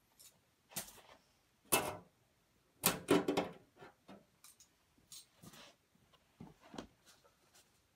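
Handling noise: a few separate knocks, clunks and rustles of tools and parts being moved about, spread over several seconds, the loudest about three seconds in.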